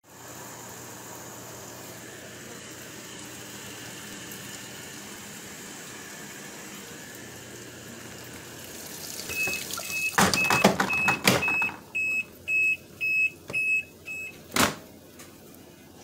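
Panda PAN6360W portable washing machine pumping water out through its drain hose into a sink, a steady rush with a low hum. Later the machine beeps about ten times, roughly twice a second, mixed with a few clunks and one sharp knock near the end.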